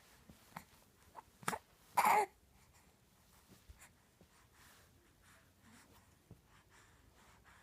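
A newborn baby makes one short vocal sound with a wavering pitch, about two seconds in. Small clicks and faint sounds come before and after it.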